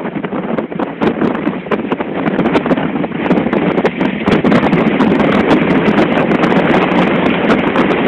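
Strong wind buffeting the microphone at a ship's rail in heavy seas: a loud, continuous rushing broken by many crackling pops, mixed with the wash of rough sea.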